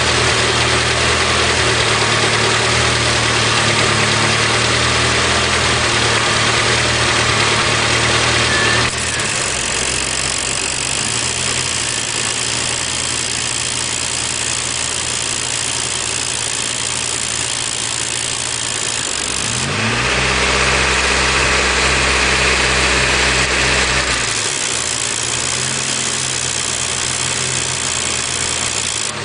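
Honda Civic idling with the air conditioning running and making a strange noise. The sound shifts abruptly about nine seconds in; around twenty seconds in a short rising tone leads into a stronger deep hum with a brighter hiss, which drops away about four seconds later.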